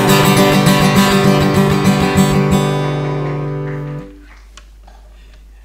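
Acoustic guitar strummed in a steady rhythm, closing a worship song: the last chord rings on after about two and a half seconds and dies away about four seconds in.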